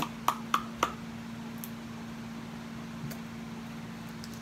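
Slime squeezed in the hand, giving four quick wet pops in the first second as air pockets burst. A steady low hum continues underneath.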